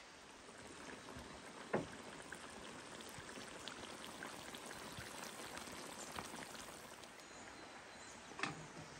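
Beef stew simmering in a cast iron wok, with many small bubbling pops over a steady rushing background. Two sharper knocks, about two seconds in and near the end.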